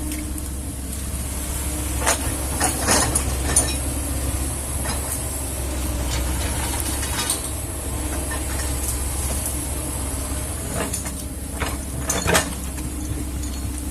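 Kobelco excavator's diesel engine running steadily with a constant low drone and hum. Sharp knocks come in a quick cluster about two to three and a half seconds in and again near the end, the loudest about twelve seconds in.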